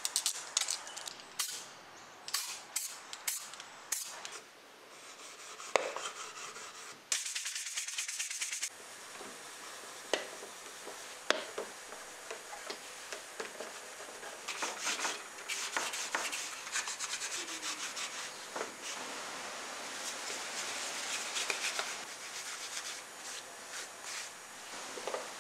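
Hand rubbing and scuffing: an aluminium plate being roughed up with abrasive paper, with small clicks and knocks as it is handled, then steadier rubbing on the wooden case.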